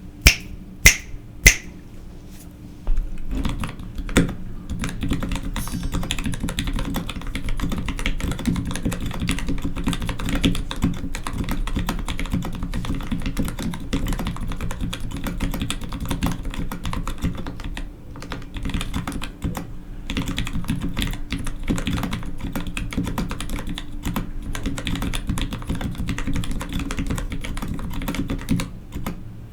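Typing on a Space 65 custom mechanical keyboard with Gateron FEI switches and GMK Jamon keycaps: a dense, continuous run of keystrokes that begins about three seconds in and pauses briefly midway. Before the typing, three sharp clicks about half a second apart, each with a short ringing tone.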